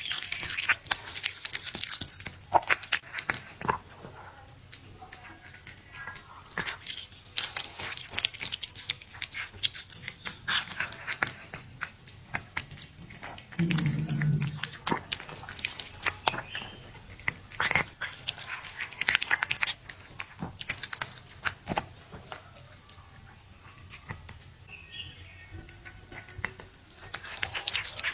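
Cat chewing and biting raw venison: sharp, moist chewing clicks and lip smacks in irregular clusters, with a brief low hum about halfway through.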